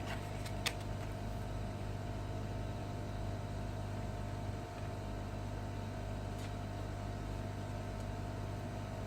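A steady electric fan and motor hum, even in level, with a couple of light clicks, one sharp at just under a second in and a fainter one about six seconds in.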